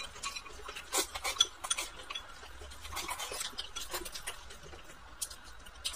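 Eating sounds: chopsticks tapping and clinking against a glass bowl in a scatter of light, irregular clicks, with soft chewing between them.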